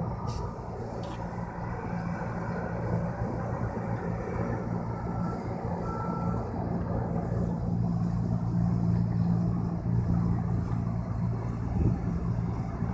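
A boat's engine running as a steady low hum under a rushing noise, growing a little louder in the second half. Two short high beeps sound about five and six seconds in.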